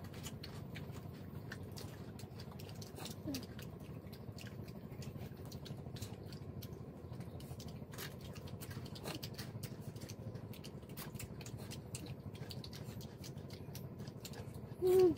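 Scattered small clicks and crackles of boiled shrimp shells being peeled and picked apart by hand, with a steady low background hum. A short, loud cry that bends in pitch comes near the end.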